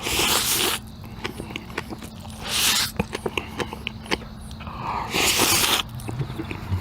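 Black bean noodles (jjajangmyeon) being slurped in three loud, hissing pulls, with wet chewing and lip-smacking clicks between them.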